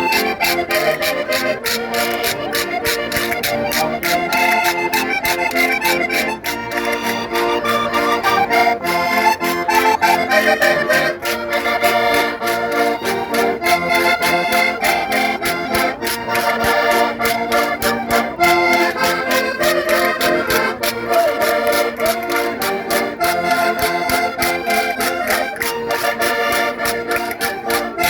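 Concertinas playing a traditional dance tune, several reed notes sounding together over a fast, even beat.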